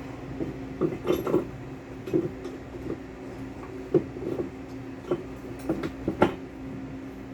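Irregular metallic clinks and knocks of a container twistlock's parts being handled during greasing and reassembly, about a dozen over several seconds, over a steady mechanical hum.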